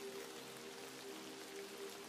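Steady rain with scattered drops pattering, under soft music of long held tones.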